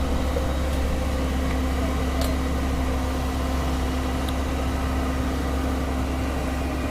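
Heavy diesel engine of earthmoving machinery running steadily at low revs, an even low rumble with a steady hum. Two faint ticks come about two seconds apart.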